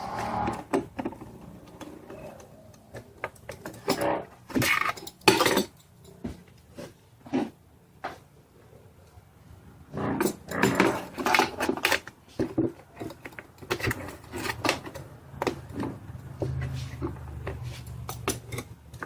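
Irregular clicks, knocks and rustling of hands working on a motocross bike's air intake as the air filter is taken out and a fresh one fitted.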